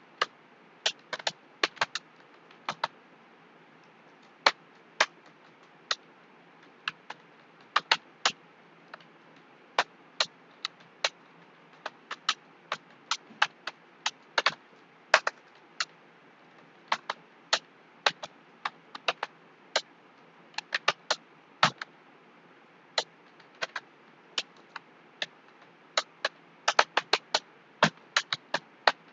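Computer keyboard keys being typed on in an irregular run of sharp clicks, with short pauses between bursts.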